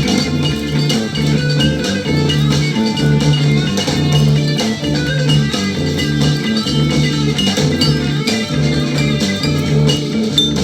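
Instrumental passage of a 1960s psychedelic rock song: guitar over a repeating bass line and a drum kit.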